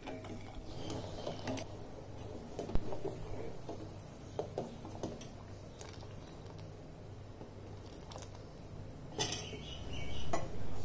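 A steel ladle stirring a milk and agar mixture in a stainless steel pot, scraping and clinking against the metal with scattered sharp clinks. A louder clatter comes near the end.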